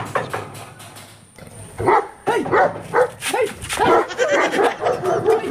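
A dog barking repeatedly behind a gate, about two to three barks a second, starting about two seconds in. Just before it, a knock on the metal gate.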